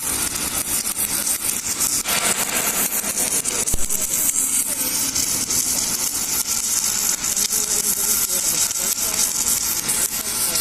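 Submerged arc welding from an Aotai ASAW 1250 welder in progress: a steady hiss with fine crackling, strongest in the high range. A single knock about four seconds in.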